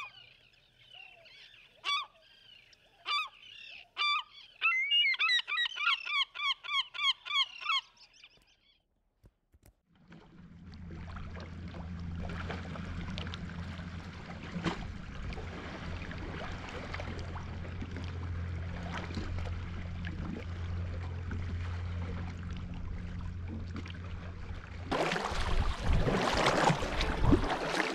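Bird calls: a few single calls, then a quick run of them at about six a second. After a short pause comes a steady low hum under a hiss of wind and water, which grows louder and rougher over the last few seconds as a sea kayak is paddled on open water.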